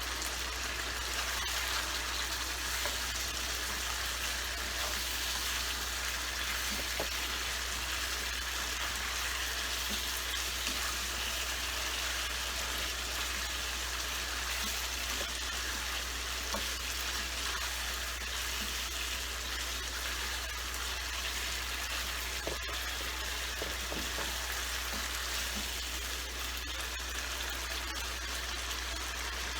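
Chicken sukha sizzling steadily in the pan as its last juices cook off and it dries down, with a few small scattered pops.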